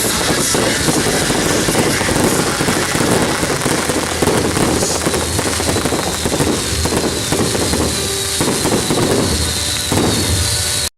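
Fireworks crackling in a dense, continuous barrage: countless small rapid bursts running together like heavy rain.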